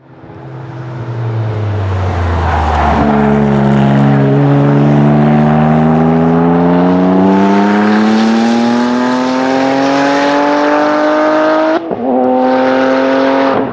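Modified twin-turbo flat-six of a Porsche 997 GT2 at full throttle. Its pitch drops as it comes past, then the revs climb steadily for about nine seconds as the car pulls away. Near the end there is a brief break for an upshift, after which it pulls on at slightly lower revs.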